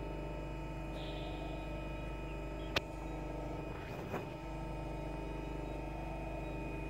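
Steady hum with several fixed tones from a powered-on CNC press brake standing idle, with one sharp click about three seconds in and a brief rustle about a second later.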